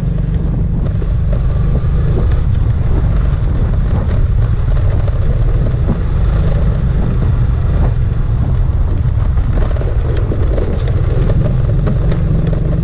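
Motorcycle running under way, with heavy wind rumble on the microphone.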